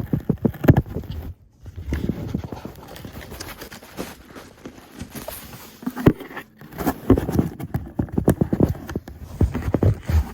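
A package being opened by hand: irregular knocks and handling thumps with rustling and tearing of the packaging.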